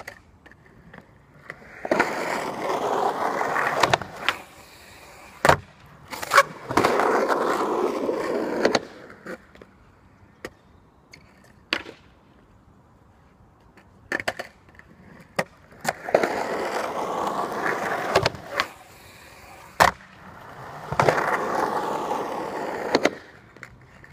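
Skateboard on new 53 mm Force urethane wheels rolling over skatepark concrete and ramps, in four runs of about two seconds each. Sharp wooden clacks of the board's tail popping and landing come between and at the ends of the runs.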